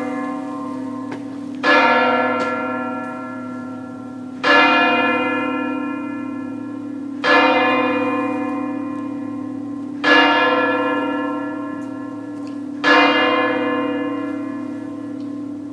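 A single large bell tolling slowly at one pitch, five evenly spaced strikes about three seconds apart, each ringing on long before the next.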